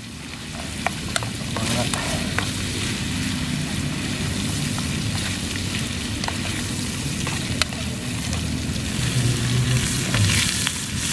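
Meat sizzling as it fries in an aluminium camping pan on a portable gas stove, stirred with a metal utensil that clicks sharply against the pan now and then.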